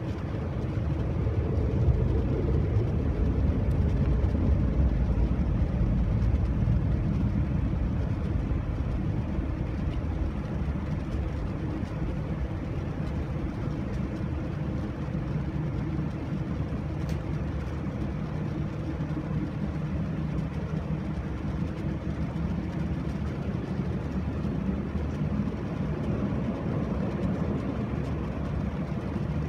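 Cabin noise inside a Boeing 787-9 during taxi: a steady low rumble from the engines at taxi power and the rolling airframe, with a faint steady hum. It swells a little a couple of seconds in, then settles to an even level.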